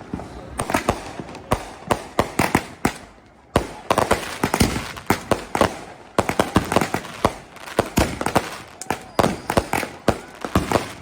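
Fireworks and firecrackers going off in rapid, irregular bangs and cracks, many overlapping. A brief lull about three seconds in ends with a sharp bang, and a dense run of bangs follows.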